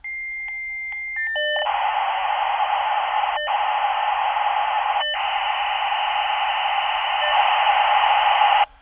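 Dial-up modem handshake over a phone line: a steady high answer tone for about a second, a quick step of short tones, then a long, loud hissing rush of data noise with two brief breaks, cutting off suddenly near the end.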